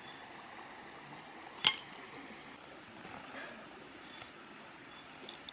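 Stream water running steadily, with one sharp click or knock about a second and a half in and a few faint bird chirps.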